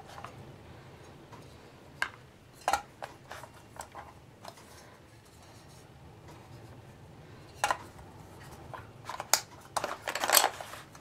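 Clicks and knocks of a small ammo-style storage box being handled: the lid snapped shut and latched with a sharp click at the start, then opened and the contents moved about, with scattered clicks and a denser rattle near the end.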